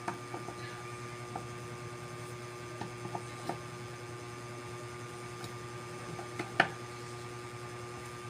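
Inverter air-conditioner compressor running steadily on the repaired outdoor board: a steady hum with a faint fixed whine, a few light clicks, and one sharper click about six and a half seconds in.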